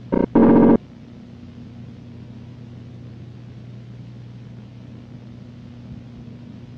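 A steady low electrical hum with hiss, like the noise floor of an old videotape. Within the first second it is broken by two loud pitched blips, a short one and then a longer one of about half a second.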